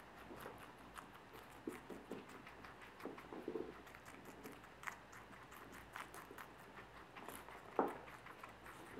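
Two guinea pigs chewing food from a plastic bowl: a quick irregular patter of small crisp clicks from their teeth and the bowl, with a few soft knocks and one louder knock near the end.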